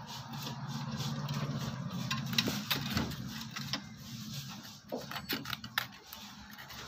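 A low mechanical hum with fast, even ticking over it, dying away after about four seconds, then a few light clicks from small parts of the rice cooker being handled.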